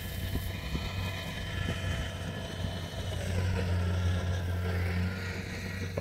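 Kubota combine harvester running as it reaps rice: a steady low engine drone with faint higher whining tones, growing slightly louder about halfway through.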